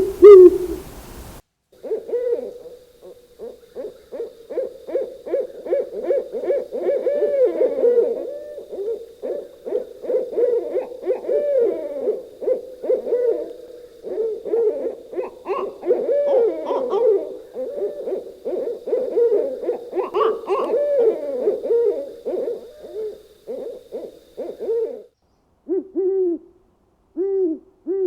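Owls hooting: many short, arched hoots overlap in a dense, rapid run. Near the end only a few single hoots are left.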